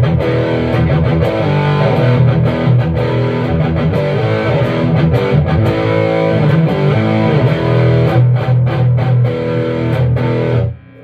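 Electric guitar played through a 15-watt Alien tube amp with distortion, strumming rhythmic chords. The playing stops abruptly near the end, and a faint tone rings on.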